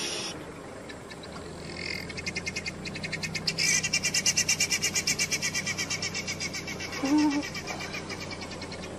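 A rapid, high chirping trill of about ten pulses a second from a wild animal in the bush, starting a couple of seconds in and fading out about seven seconds in. Near its end comes a brief, low, voice-like sound.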